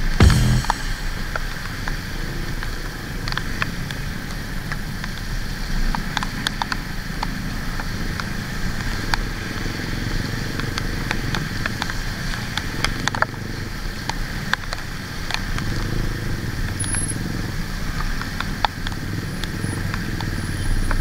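Motorcycle engine running at low speed in slow traffic on a rain-soaked road, over a steady hiss of rain and wet tyres, with scattered sharp ticks.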